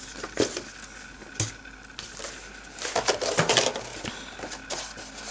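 Packaging being handled in a cardboard box: a couple of sharp knocks, then crinkling and crackling of a clear plastic blister tray as it is lifted out.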